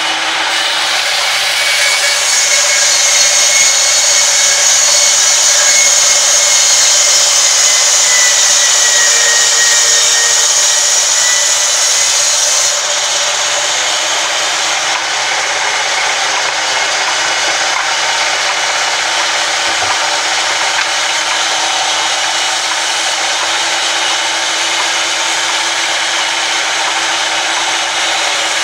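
Band saw mill running and ripping a log lengthwise: a steady, loud whining hiss of blade through wood. It is louder and brighter from about two to thirteen seconds in, then settles slightly quieter.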